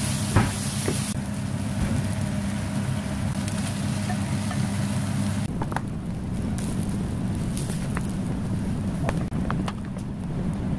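Kimchi fried rice sizzling in a nonstick frying pan while a wooden spatula stirs it, with a steady low hum underneath. The hiss of the sizzle drops about halfway through, after which the spatula's taps and scrapes on the pan stand out as scattered clicks.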